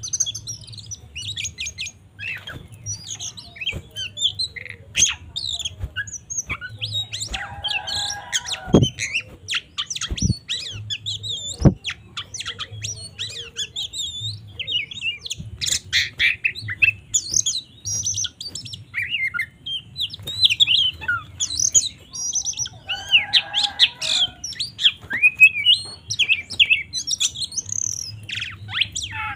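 Oriental magpie-robin (kacer) in full, aggressive song: a fast, unbroken stream of varied whistles, chirps and trills, with harsher lower calls about 8 seconds in and again about 24 seconds in. A few sharp knocks come between about 9 and 12 seconds.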